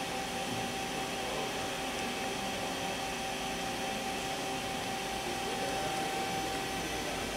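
Powered-up KIWA KNH-426X horizontal machining center standing by, its pumps and fans giving a steady hum with a constant whine.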